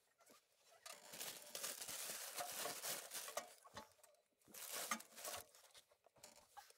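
Rustling and scraping of hands and tools at work under a compact tractor, in two bursts: a longer one from about a second in and a shorter one about four and a half seconds in.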